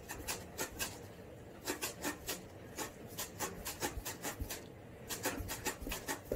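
Cat scratching and shifting about inside a cardboard box: quick, irregular scrapes and rustles against the cardboard.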